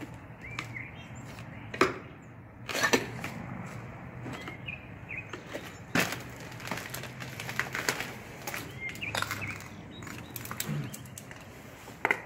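Footsteps crunching over broken glass and debris on a tiled floor: irregular sharp crunches and clicks, the loudest about two, three and six seconds in, and a run of them a little later.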